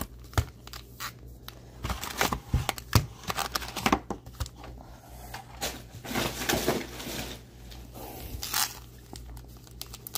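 Sealed foil packs of Upper Deck hockey cards crinkling and rustling as gloved hands pull them out of the hobby box and stack them, with irregular light clicks as the pack edges knock together.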